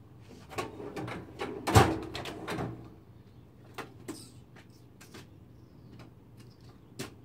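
Handling noise of sandpaper and tools at a workbench: scattered clicks and light knocks, with one louder thump a little under two seconds in.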